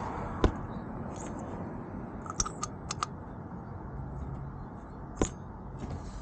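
A few sharp metallic clicks and clinks of an oil pressure switch socket and switch being handled: one near the start, a quick cluster of four or five in the middle, and one near the end, over a steady background hiss.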